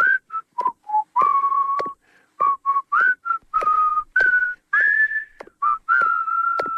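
Someone whistling a tune: a run of short and held notes that wander up and down in pitch, each note starting with a sharp click.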